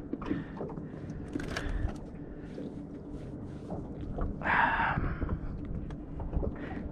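Handling noises as a crappie is brought into a small fishing boat without a net: scattered light knocks and clicks over a low steady hum, with a brief hissing rush about halfway through.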